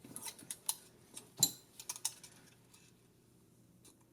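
Light metallic clicks and taps of hand tools against the valve rocker arms of a golf cart engine during a valve clearance adjustment, with one louder knock about a second and a half in, then quieter.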